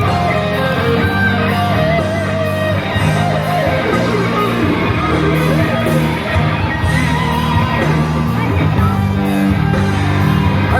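Live band music in a large hall, led by guitar over a steady bass line, with a voice singing at times.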